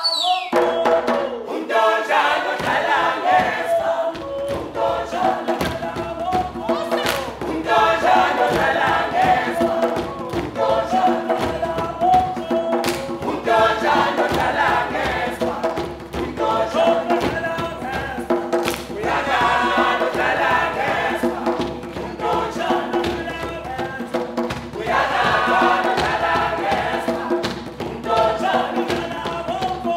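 Music with a group of voices singing together in chorus.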